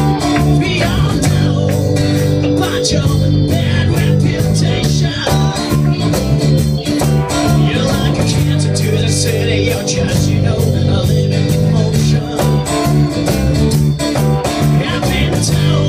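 Small rock band playing live: a singer at the microphone over strummed acoustic guitar, a second guitar and drums, with a steady beat.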